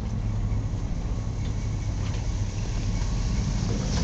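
Engine of an approaching 1978 Chevrolet Monte Carlo lowrider, a steady low rumble that grows louder near the end.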